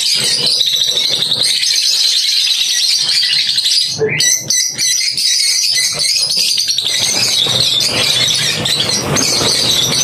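A flock of small birds chattering and chirping all at once, a dense busy din with a brief break about four seconds in.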